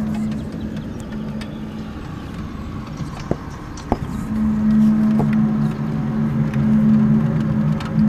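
A low, steady droning hum of several deep tones sounding together, fading out near the start and swelling back in about four seconds in: the unexplained 'strange sound' heard outdoors that recurs every ten minutes to half an hour. A couple of faint clicks fall in the gap.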